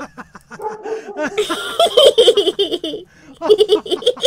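Hearty laughter in quick runs of "ha-ha" pulses, about five a second, pausing briefly twice.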